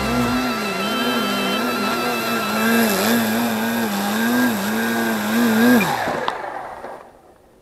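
Brushless electric motor and propeller of an RC aerobatic plane in a hover, its pitch rising and falling as the throttle is worked. About six seconds in the pitch glides down and stops as the motor is throttled off while the plane is caught by hand.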